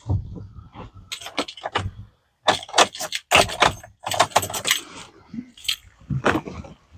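Keys jangling and a run of sharp clicks and rattles as the ignition key of a Duramax diesel pickup is worked, with no cranking or engine sound at all: the truck is completely dead, which the owner suspects may be flat batteries.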